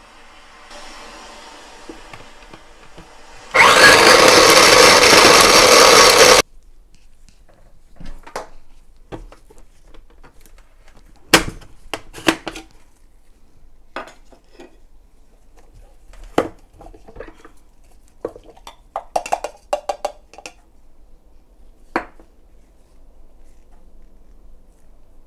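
Small electric food chopper running for about three seconds as it chops lemon peel, then cutting off abruptly. Afterwards come scattered clicks and knocks of the plastic lid, bowl and blade being handled.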